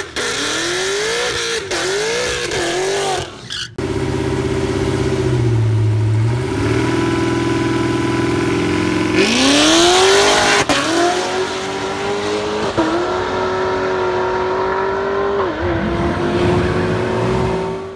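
Chevrolet Camaro SS V8 at a drag strip. It revs up and down several times during a burnout, then holds steady revs on the start line. About nine seconds in it launches, and the engine note climbs hard down the track, dipping briefly at each upshift.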